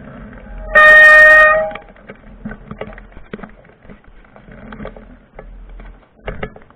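A vehicle horn sounds one steady blast of about a second, starting just under a second in and cutting off sharply. A low engine hum runs beneath it, and scattered light clicks and knocks follow.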